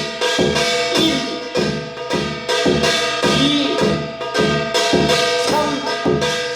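Korean shamanic (무속) percussion rhythm played slowly, with evenly spaced strokes about two to three a second over long-sustained ringing tones, and a voice singing along faintly in places.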